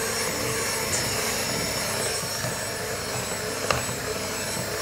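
Electric hand mixer with dough hooks running steadily, kneading a soft yeast dough in a plastic bowl, with one short knock of the hooks about three-quarters of the way through.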